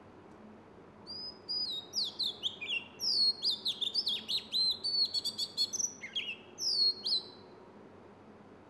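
A bird singing a rapid, varied run of clear whistled notes, most of them sliding downward in pitch. The song starts about a second in and stops a little before the end.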